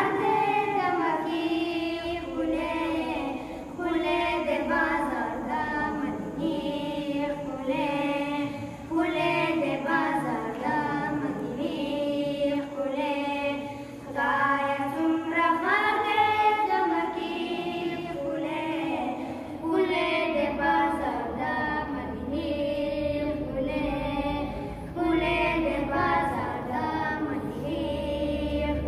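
Two boys singing a Pashto devotional song (naat) together, unaccompanied, in long held phrases.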